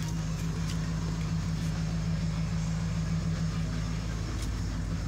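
Engine idling steadily: a low, even hum, with a few faint clicks over it.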